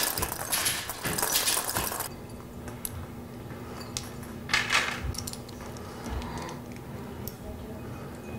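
Glass pendants of a crystal chandelier clinking and jingling against each other as they are handled. The jingling is busiest for the first two seconds, then thins to scattered clinks, with one more short burst about halfway through.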